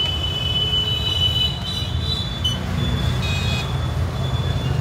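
Steady rumble of street traffic, with a thin, steady high-pitched whine over it.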